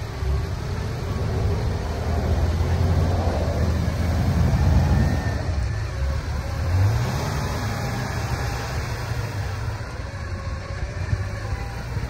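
Truck engines running under load during a winch recovery of a pickup stuck in a deep snow rut, the revs rising briefly a little past the middle.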